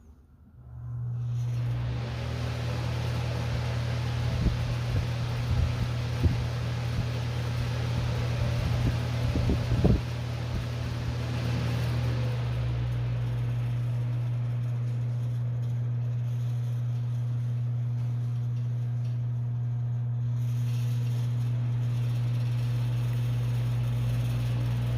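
A 12-inch variable-speed ventilation fan switched on, running with a steady low motor hum and a rush of air, with a few knocks and rattles in the first half. About halfway through, the air rush drops away while the hum goes on, as if the fan is turned down to a lower speed.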